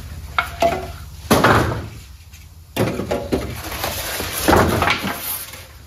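A series of knocks and bumps from a metal mobile workbench and its packaging being handled and moved into place, with one louder knock about a second and a half in.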